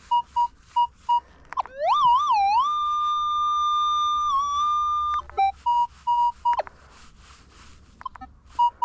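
Metal detector signalling a buried target: short beeps repeating about four times a second, then a tone that glides up, wavers twice and holds steady for about three seconds before cutting off, followed by a few more short beeps and a falling glide.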